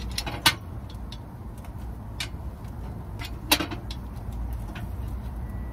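Metal pick clicking and knocking against cast-iron bungeoppang molds as finished fish-shaped buns are picked out, a few sharp knocks with the loudest about half a second and three and a half seconds in, over a steady low rumble.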